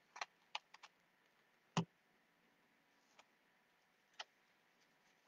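A few small, sharp clicks against near silence: several light ones in the first second, a louder single click a little under two seconds in, and a faint one about four seconds in.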